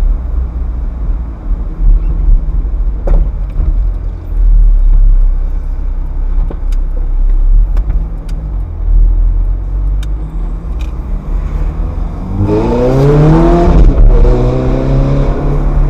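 Ferrari F430's V8 engine running at low speed on the road, with a short rev rising in pitch about twelve seconds in before settling to a steady note.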